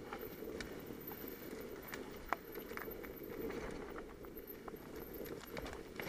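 Mountain bike rolling fast down a dirt trail. The tyres and frame give a steady low rumble, with scattered clicks and rattles as it rides over roots and rocks, and one sharper knock a little over two seconds in.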